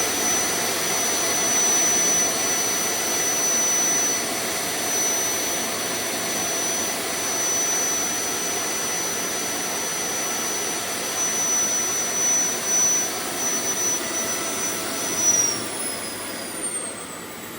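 Vacuum cleaner motor running with a loud, piercing high whine over its rushing noise, a noise its owner calls deafening and unbearable. About fifteen seconds in the whine slides down in pitch and the machine gets quieter as it slows.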